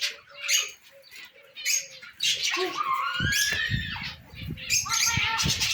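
Many caged birds chirping and squawking in short overlapping calls, with one longer wavering call about halfway through, and a run of low thuds from about halfway on.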